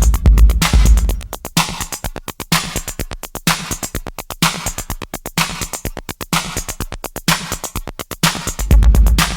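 Old-school Miami bass drum-machine beat. The deep booming bass drops out about a second in, leaving a run of fast, evenly spaced drum-machine hits, and comes back in near the end.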